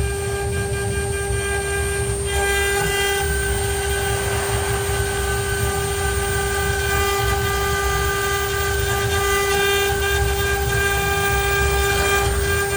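CNC router running: a steady, high-pitched spindle whine with a constant tone and overtones over an uneven low rumble, its upper tones shifting slightly about two seconds in.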